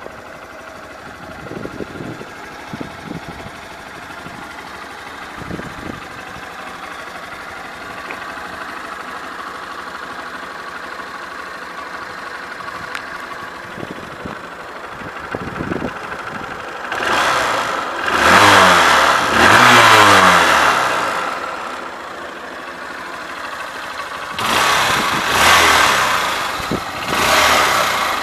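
2012 Honda CBF125's single-cylinder four-stroke engine idling steadily, then revved by hand: two revs rising and falling a bit over halfway through, and two more near the end.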